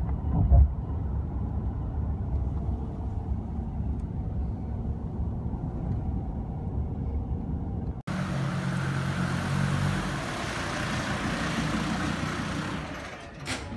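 Car interior road noise: a steady low rumble of a car driving, heard from inside the cabin, with a thump just after the start. About 8 s in it cuts to a different scene: a vehicle engine running steadily under a broad hiss.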